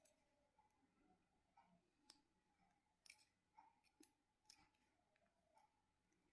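Near silence with a few faint, irregular clicks from a cuckoo clock movement being worked by hand, its chain and sprocket turning freely.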